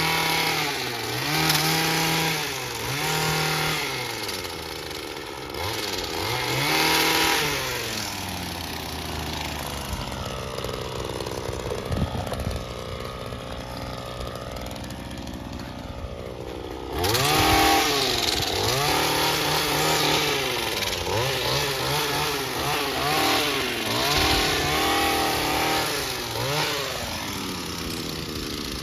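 Small engine of a handheld lawn power tool, revved up and back down over and over as it works. It runs steadier and lower through the middle stretch, then comes back louder about two-thirds of the way in with more repeated revs.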